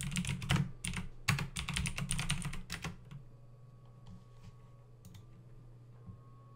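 Typing on a computer keyboard, a quick run of keystrokes for about three seconds, then only a few faint clicks.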